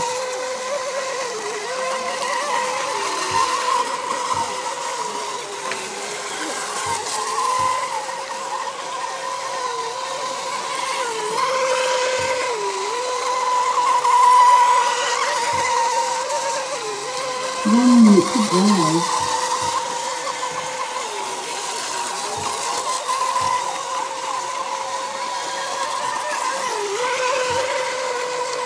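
Mini Mono class radio-controlled racing boats with electric motors running laps together, a steady high-pitched whine that dips briefly in pitch now and then as boats ease off through the turns. A short, louder warbling sound cuts in about two-thirds of the way through.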